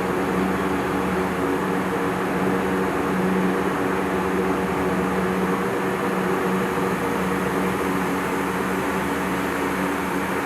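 Baler twine making machine running steadily: a constant mechanical hum with a whirring noise over it.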